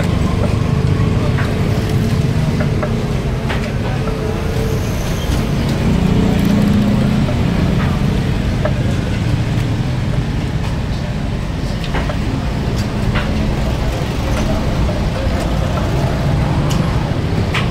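Steady low rumble of background noise, with indistinct voices and a few sharp clicks scattered through it.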